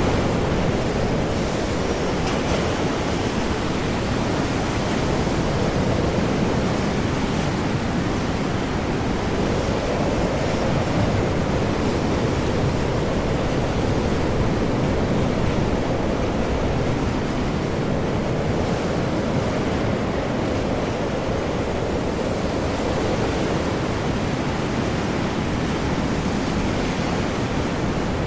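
Stormy ocean: heavy, large waves breaking under high winds, a dense, steady rush of water and wind that slowly swells and eases.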